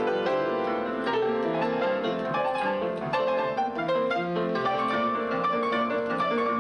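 Piano music: a busy passage of many quick notes and chords played continuously.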